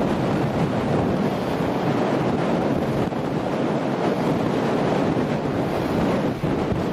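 Wind blowing across the camera microphone: a loud, steady rushing noise with no other sound standing out, dipping briefly near the end.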